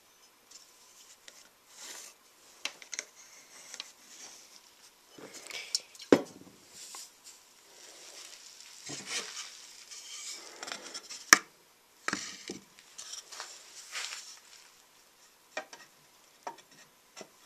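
Wooden boards being handled on a wooden workbench: scattered light knocks, scrapes and rustling, with two sharp wooden knocks about six and eleven seconds in, the second the loudest.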